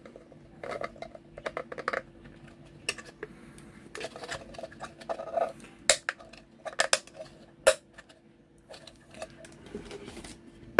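Hard 3D-printed plastic parts of a sheet-film developing tank clicking and knocking against each other as they are handled and pushed together, in a string of short irregular knocks.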